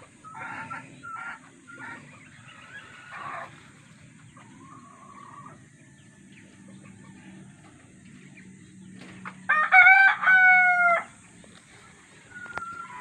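Rooster crowing once, loud, about nine and a half seconds in. Shorter chicken calls come in the first few seconds.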